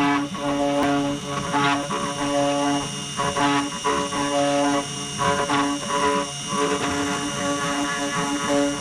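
Stepper motors of a CNC 3018 Pro desktop router whining in short tones that jump between pitches as the axes move while it carves wood, over the steady high whine of the spindle.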